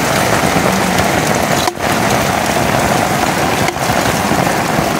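Heavy rain pouring, with runoff splashing onto wet ground, while a small hatchet chops and scrapes into gravelly mud to dig a drainage channel.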